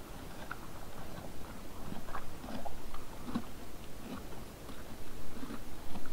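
Red deer feeding on a pile of hay: irregular crunching and rustling as they pull at the hay and chew it, several small crunches a second.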